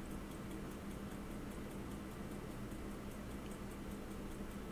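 A mechanical watch ticking faintly and quickly, about five ticks a second, over a steady low hum.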